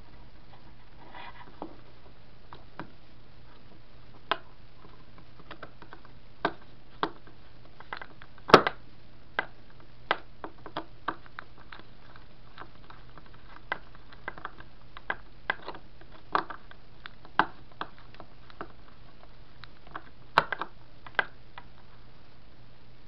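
Irregular sharp snaps and ticks, roughly one a second and the loudest about eight and a half seconds in, over a steady low hum: a small Tesla coil crackling with discharges as it runs.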